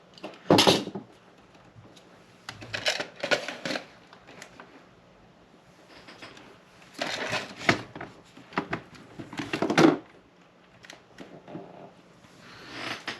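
Handling noises from a Tascam Porta Two cassette recorder's tape mechanism being worked on by hand: several short bouts of clicking, scraping and rattling of small plastic and metal parts, the loudest about half a second in.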